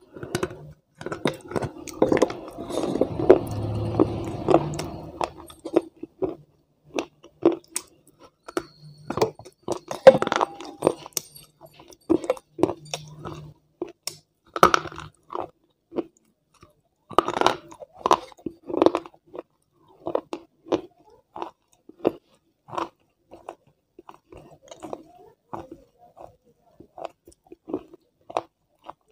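Close-miked crunching and chewing as a person bites into and chews a hard grey bar. Dense crackling crunches come in the first few seconds, then separate crunches at about one or two a second.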